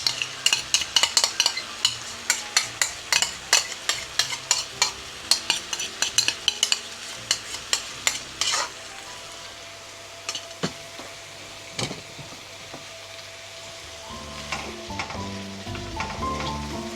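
A spoon stirring and scraping in a pot of tomato paste and vegetables frying, with rapid clicks of spoon on pot for the first eight seconds or so, then steady sizzling. Background music comes in near the end.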